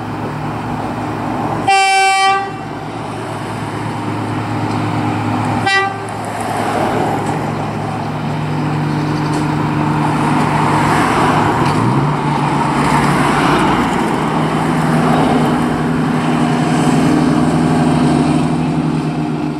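KiwiRail EM80 track evaluation car sounding its horn: one toot of under a second, then a shorter toot about four seconds later. Its engine runs steadily, the note rising briefly about midway, and the running noise grows louder as the rail car passes over the level crossing.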